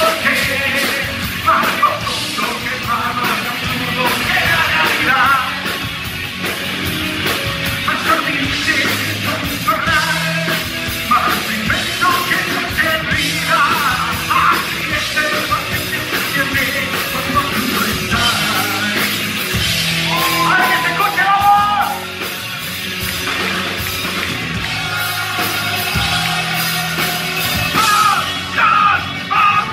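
Live rock band playing: electric guitar and drum kit, with a man singing over them.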